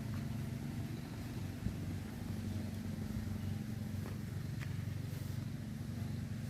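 An engine running steadily at an even speed, a constant low hum, with a few faint clicks over it.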